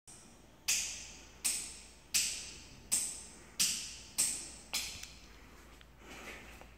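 A series of seven sharp clicks, about two-thirds of a second apart, each with a short hissing tail; the last one is weaker.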